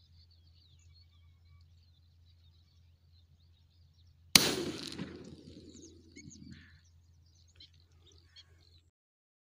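A single shotgun shot about four seconds in, its boom dying away over about two seconds. Faint bird chirps before and after the shot.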